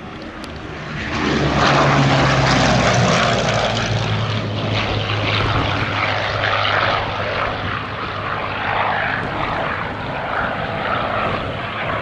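Hawker Sea Hurricane's Rolls-Royce Merlin V12 engine in a low flypast. The sound swells quickly about a second in, its pitch drops as the fighter passes, and then it carries on, slowly fading as it flies away.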